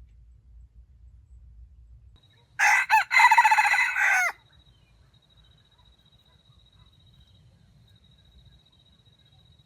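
A rooster crows once, loud and fairly short, about two and a half seconds in, with the pitch dropping at the end of the crow.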